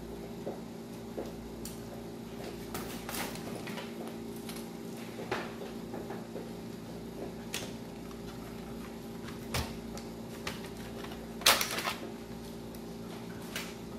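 Scattered clicks and plastic clatter from laptop case parts being handled during disassembly, the loudest a short rattle about eleven and a half seconds in, over a steady low hum.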